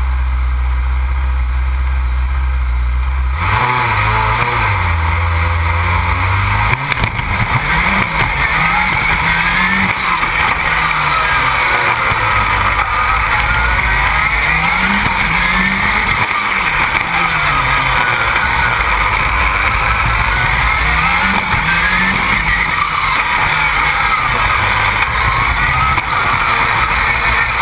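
Rallycross buggy's Škoda 1.8 turbo four-cylinder engine, heard onboard: a steady note at the start line for about three seconds, then the car launches and the engine revs hard, its pitch climbing and dropping again and again through gear changes, under a constant loud rushing noise.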